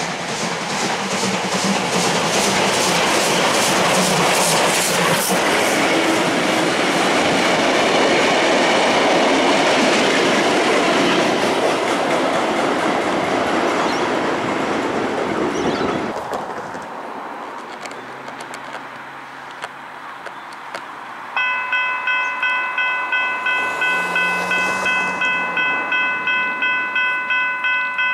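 Steam locomotive and its carriages passing at speed, with a rhythmic clatter of wheels over the rails, fading away after about fifteen seconds. Later a level crossing bell starts ringing in a steady rapid beat, about three strokes a second.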